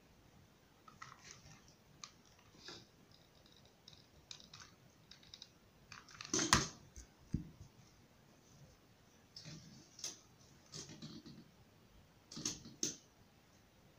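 Hands handling a satin ribbon flower, giving scattered soft rustles and small clicks with quiet gaps between them. The loudest click-rustle comes about halfway through, with a few more near the end.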